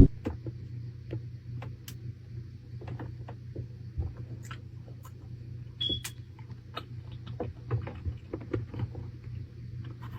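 Scattered small clicks and taps over a steady low hum, with one brief high-pitched tone about six seconds in.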